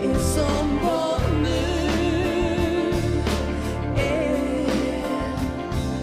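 Live duet of a woman's and a man's voice singing a Swedish pop ballad over a band.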